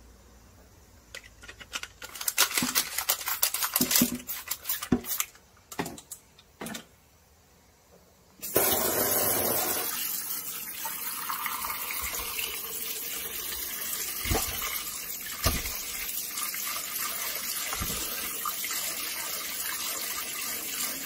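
Trigger spray bottle squirting fruit-and-vegetable wash onto potatoes, many quick squirts in a row. From about eight seconds in, a kitchen tap runs water steadily onto the potatoes in a pot in a stainless steel sink while hands rub them clean.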